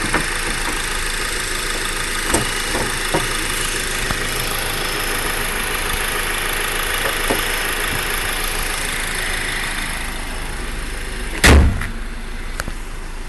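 Honda Accord's direct-injection engine idling with a clicky ticking, which the uploader takes for the normal noise of a direct-injection engine with a timing chain, not a fault. Near the end the hood is slammed shut with one loud bang, and the engine then sounds quieter.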